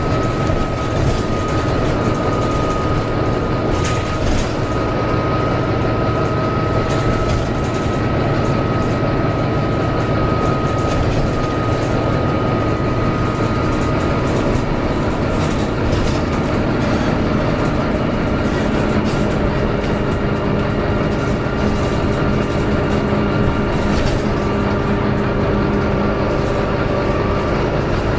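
Volvo B9TL double-decker bus under way, heard from inside the passenger saloon: its six-cylinder diesel and driveline running steadily, with a high whine throughout and a lower hum joining about two-thirds of the way in.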